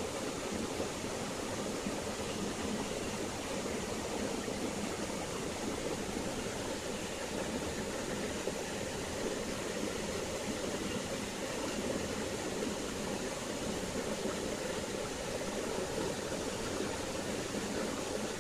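Shallow stream flowing over stones: a steady, even rush of running water.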